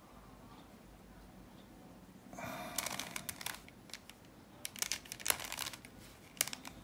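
Plastic Bermuda Uranus puzzle cube being turned in the hands: its pieces click and rattle in a quick cluster starting a little over two seconds in, then in a second cluster around five seconds, with one last click near the end.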